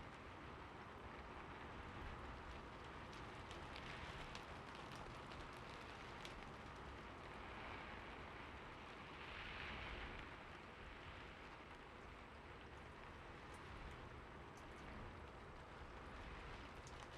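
Faint, steady rain hissing, with scattered individual drops ticking sharply over it.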